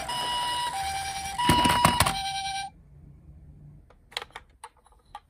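Toy ambulance's electronic two-tone hi-lo siren, switching between a higher and a lower pitch about every 0.7 s. A burst of clattering knocks comes about a second and a half in. The siren cuts off suddenly before the three-second mark, leaving a few faint clicks.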